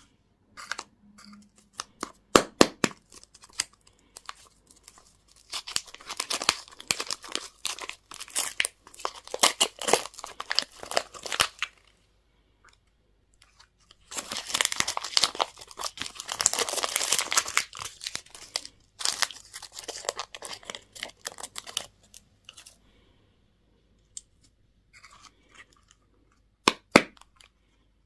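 Candy wrappers being torn open and crinkled by hand, in three long spells of crackling with short pauses between, and a few sharp clicks near the start and the end.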